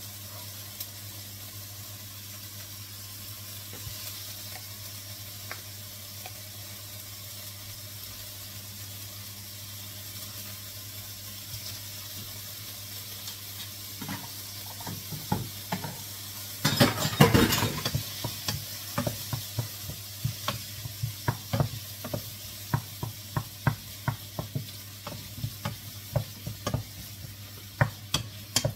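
Garlic, onion and butter frying in a hot pot, a steady sizzle. A little past halfway a loud clatter as a wooden spoon goes into the pot, then the spoon knocks and scrapes against the pot again and again while stirring, the sizzle going on underneath.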